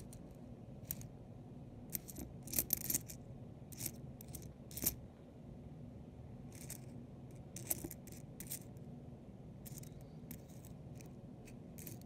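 Copper pennies clinking and clicking against one another as fingers slide and turn them over on a cloth mat: light, irregular taps, some in quick clusters, over a faint low hum.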